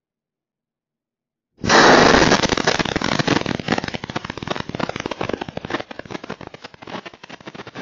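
Chemical explosion blast heard through a security camera's microphone: a sudden, very loud boom about a second and a half in, followed by a long clatter of falling debris and glass that slowly dies down.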